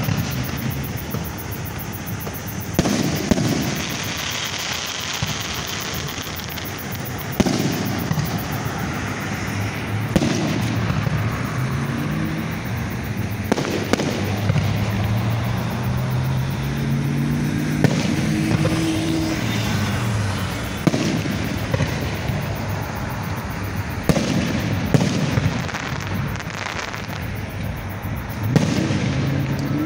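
Aerial fireworks display: shells bursting with sharp booms every few seconds, over a continuous background of crackle and rumble.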